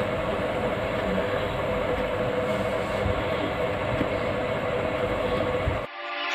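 Steady rumbling background noise with a faint steady hum, cutting off suddenly near the end.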